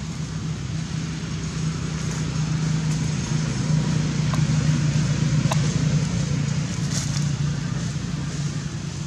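A motor vehicle's engine drones low, growing louder toward the middle and easing off near the end, with a few faint clicks over it.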